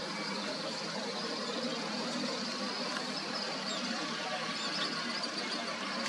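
Steady outdoor background noise: an even, constant wash with no distinct events standing out.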